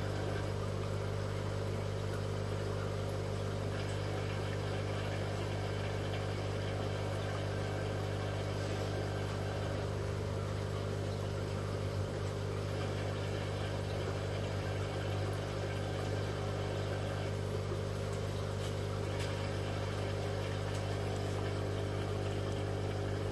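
Steady low electric hum of an aquarium air pump driving the tank's sponge filter.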